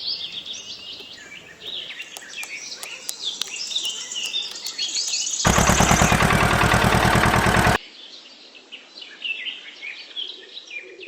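Small birds chirping and twittering. Midway through, a loud, rapid mechanical rattle lasts about two seconds, starts suddenly and cuts off abruptly, and covers the birds.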